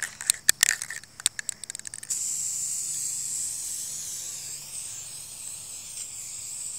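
A few sharp clicks, then about two seconds in an aerosol can of chrome spray paint starts spraying: a steady high hiss lasting about five seconds that cuts off abruptly near the end. It is the first coat going onto bare metal scooter handlebars.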